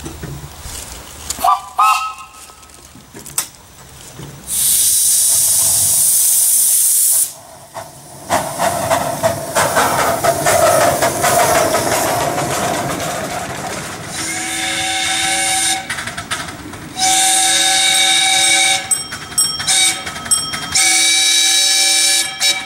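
Miniature Cagney live-steam locomotive: a loud burst of hissing steam, then a longer stretch of hissing as steam vents from around the cylinders. Then its steam whistle sounds: two long blasts, a few short toots, and a final long blast.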